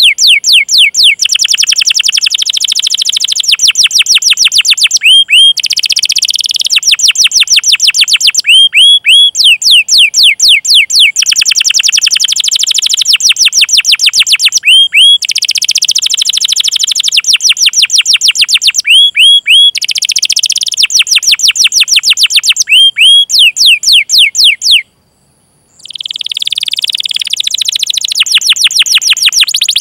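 Domestic canary singing: long, rapid rolling trills of repeated sweeping notes, broken by short upswept 'cuit cuit' chirps between phrases, with one brief break near the end.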